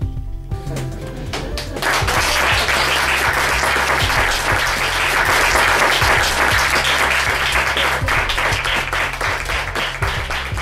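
Audience applauding, the clapping swelling in about two seconds in and carrying on over music with a steady low bass.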